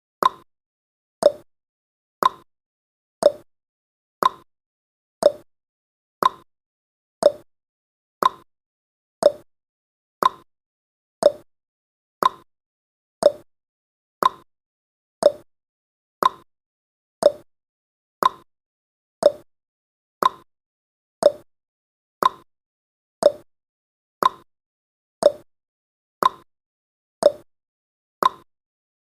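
Countdown timer's ticking sound effect: one short, sharp tick every second, steady and even.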